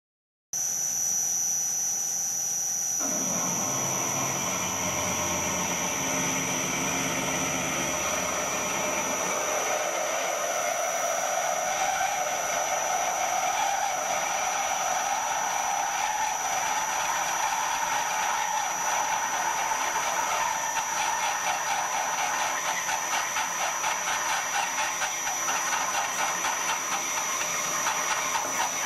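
Lathe spindle running while a long twist drill bores into the spinning metal workpiece. There is a steady high whine and a cutting noise that slowly rises in pitch, turning into a rapid pulsing in the second half.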